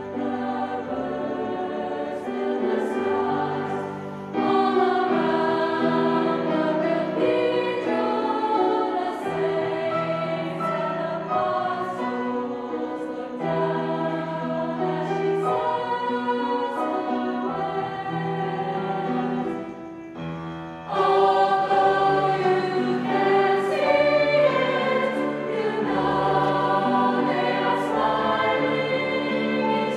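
Mixed choir of women's and men's voices singing sustained chords in harmony. The singing swells louder about four seconds in, eases briefly around twenty seconds, then comes back louder still.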